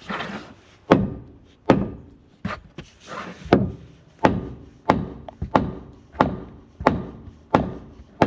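Steady hammer blows on timber framing, about eleven strikes at roughly one and a half a second, each with a short ring.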